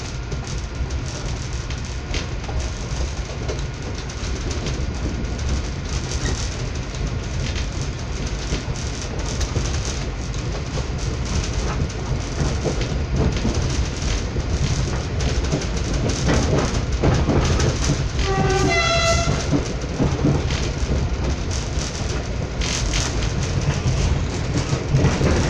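Running noise of a moving train heard from on board: a steady rumble of wheels on the rails that grows slowly louder. About 18 seconds in, the train horn sounds one short blast that steps up from a lower note to a higher one.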